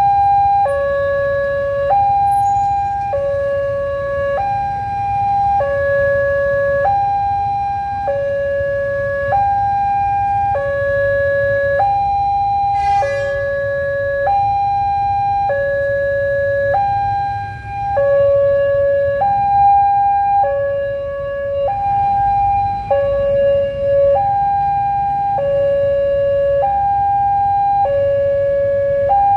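Railway level-crossing alarm sounding its steady two-tone warning, a higher and a lower tone alternating about every second and a bit without change in pitch, over a low traffic rumble. A brief rattle about thirteen seconds in.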